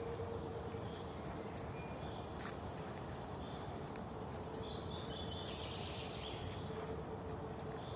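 Forest birds singing: scattered short high chirps, and from about four seconds in one long, fast trill lasting about two and a half seconds. Underneath are a steady background hiss and a faint steady hum.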